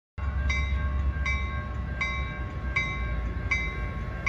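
Railroad crossing bell ringing steadily, about four strikes every three seconds, over a low rumble.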